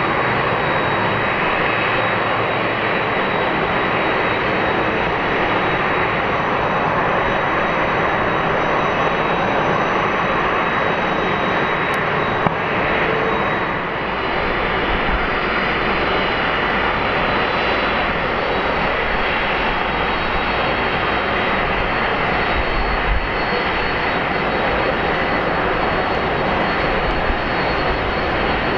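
Airbus A330-300's twin Pratt & Whitney PW4000 turbofans running at low taxi thrust: a steady jet roar with a thin high whine. About 14 s in there is a slight dip, after which the sound carries more deep rumble.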